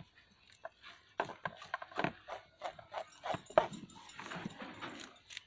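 Irregular sharp clicks and snips of scissors and a knife cutting open dead snakes and knocking against a plastic tub. The loudest click comes about three and a half seconds in.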